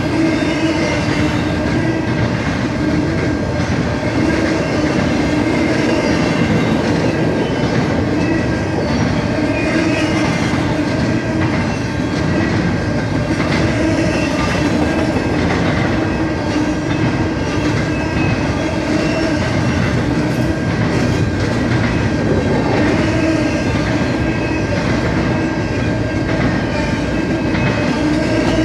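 CN freight train rolling past at steady speed, its wheels clacking over the rail joints, with a thin, steady high squeal running underneath.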